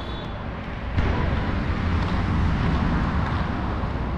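Steady vehicle and road-traffic noise, a low rumble under an even hiss, which gets louder about a second in.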